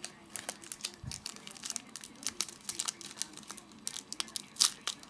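Crinkling and tearing of a 2007 Donruss Gridiron Gear trading-card pack wrapper as it is opened by hand, in a run of short, sharp crackles with the sharpest crinkle near the end. A soft low thump comes about a second in.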